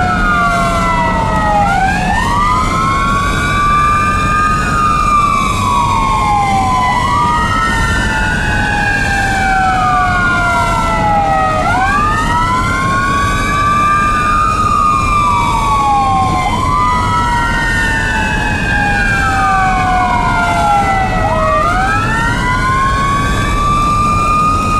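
An ambulance's Federal Signal e-Q2B electronic siren, which copies the wind-up and coast-down of the mechanical Q2B, and a Whelen electronic siren wailing together, the two rising and falling pitches overlapping out of step. Steady road and engine rumble runs underneath.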